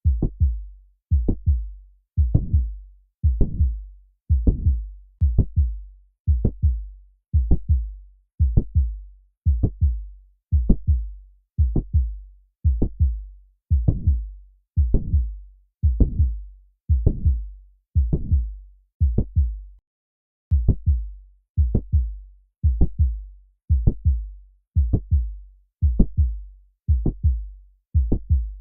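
Heart sounds heard through a stethoscope, beating steadily at about one beat a second: each beat is a cluster of dull low thuds with a short trailing sound, the click and murmur of mitral valve prolapse. The beating breaks off briefly about twenty seconds in.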